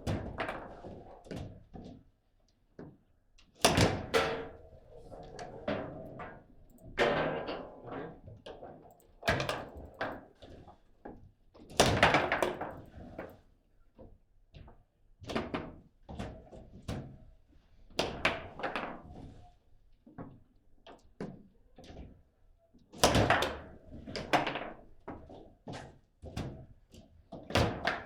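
Table football game in play: the ball is struck by the rod figures and rebounds off the table, giving irregular knocks and thuds with a few loud sharp hits.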